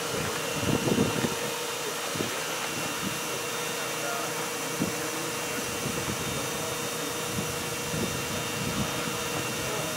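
John Deere pull-behind sprayer running with all its boom nozzles spraying water at about 80 psi: a steady hiss from the spray jets over the machine's hum, with one steady whine held throughout.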